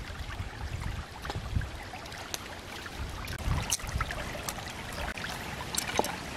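Stream water running steadily, with a few light clicks and taps scattered through as ingredients are handled in a wooden mortar.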